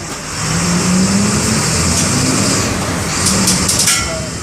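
MWM 6.12 TCE six-cylinder in-line turbo-diesel of a Volksbus 17-230 EOD bus pulling under load, its pitch rising over the first second or two and then easing off. A short burst of sharp clicks or rattles comes near the end.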